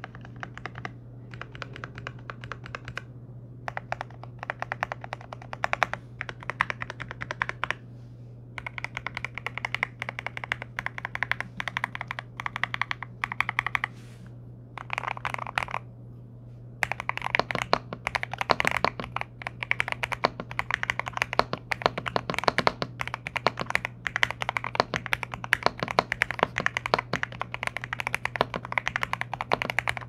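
Feker IK75 V3 gasket-mount mechanical keyboard being typed on: lubed Akko Jelly Black linear switches in a polycarbonate plate, with a tape mod and neoprene foam under the PCB. The typing comes in runs of key clacks with a few short pauses, and it is fast and continuous through the second half.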